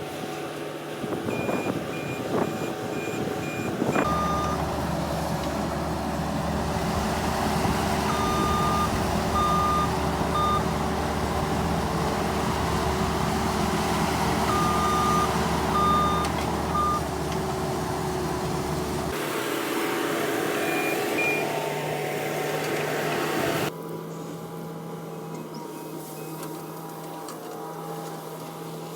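Skid steer engine running, heavier from about four seconds in until about nineteen seconds, then easing off. Runs of short, high electronic beeps come over it several times.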